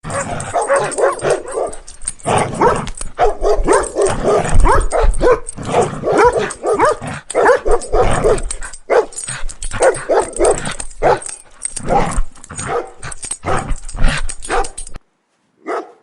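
Dog barking in quick, continuous runs, then stopping about a second before the end, followed by one last short bark.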